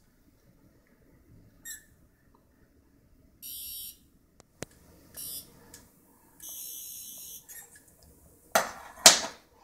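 Toy 10th Doctor sonic screwdriver sounding its shrill electronic buzz in three presses: two short bursts and one about a second long. Two loud knocks follow near the end.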